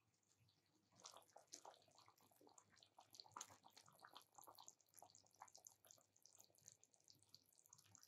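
Faint sound of water poured in a thin stream from a kettle into a pan of broth, trickling and splashing into the liquid; it starts about a second in.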